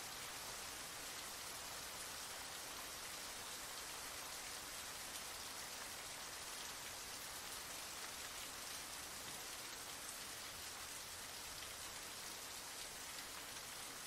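Heavy rain falling steadily: a dense, even hiss of countless drops splashing on a surface, with no let-up or change.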